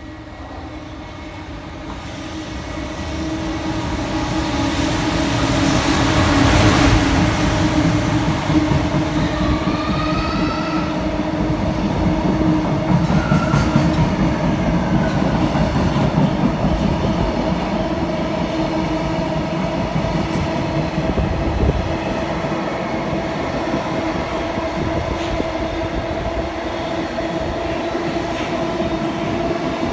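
JR Freight EF210 electric locomotive hauling a container freight train through a station: it grows louder as it approaches, peaks as it passes about six or seven seconds in, then the container wagons keep rolling by steadily.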